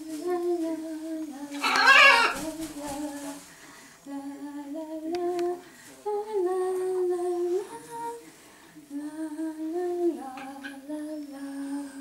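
A woman humming a slow tune in long held notes that step up and down in pitch, phrase by phrase with short breaks. A short, loud, harsh cry breaks in about two seconds in.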